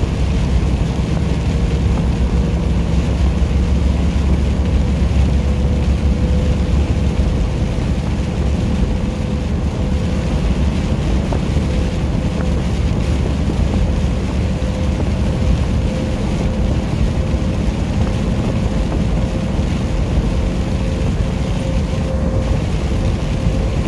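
Steady road drone inside a truck cab at highway speed in the rain: low engine and tyre rumble with the hiss of tyres on the wet road, and a faint steady whine above it.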